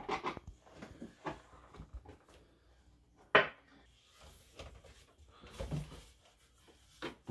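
Scattered light knocks and clicks of flat-pack furniture being put together: a solid wood top shifted on its white frame and a hand screwdriver driving screws up into the top from below, with one sharp knock about three and a half seconds in.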